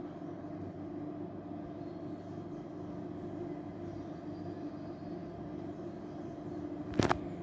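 Steady electrical hum from off-grid solar power equipment under load, with several steady tones. A single sharp click comes near the end.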